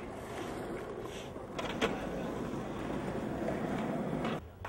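Skateboard wheels rolling on pavement, with a couple of sharp clacks of the board about two seconds in; the rolling cuts off suddenly near the end.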